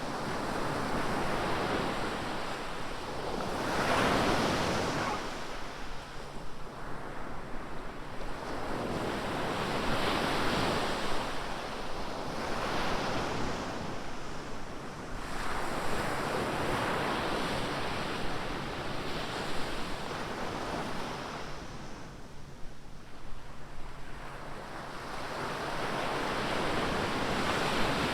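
Ocean surf: waves breaking and washing up the beach in repeated swells a few seconds apart, with some wind on the microphone.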